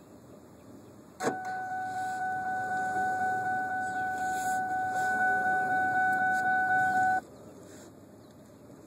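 A steady, high electronic tone from the car, held for about six seconds with a slight rapid pulsing, starting and stopping abruptly.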